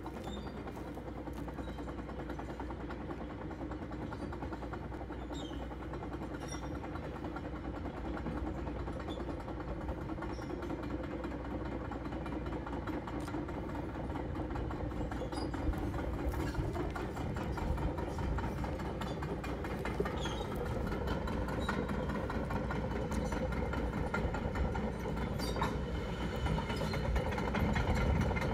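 Tracked excavator driving along a gravel road, its diesel engine running steadily with faint clicks and clanks from the steel tracks. It grows gradually louder as the machine comes closer.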